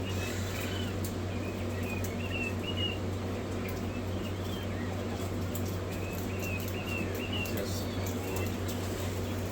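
Hatchling poultry chicks cheeping: short high chirps in runs of several, over a steady low hum.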